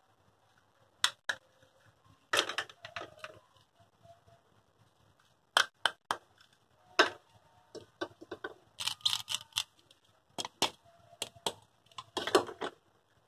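Hard plastic toy fruit and vegetable pieces clicking and clacking as they are handled, pulled apart and set down: single sharp clicks mixed with short rapid crackly runs, in several groups with pauses between.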